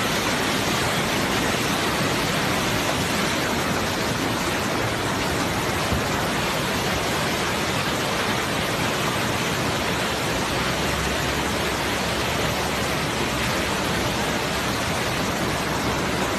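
Fast-flowing river water rushing, a steady, unbroken noise.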